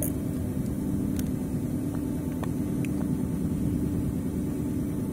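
Steady low drone of running rig machinery, with a few faint ticks over it.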